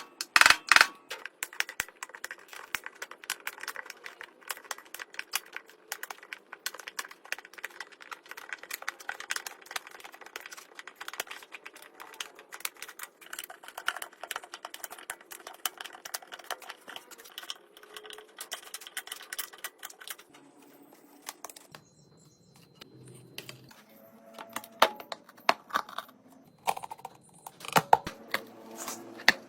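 Hand tools working on an old fire bellows: dense, rapid scratching and clicking for about twenty seconds, then a quieter stretch and several sharp knocks near the end.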